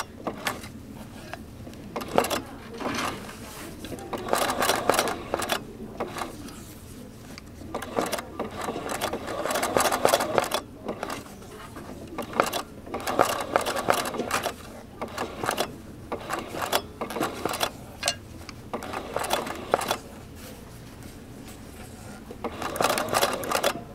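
Domestic sewing machine stitching free-motion, couching silk ribbon onto hooped fabric. It runs in short bursts of one to three seconds, stopping briefly between them.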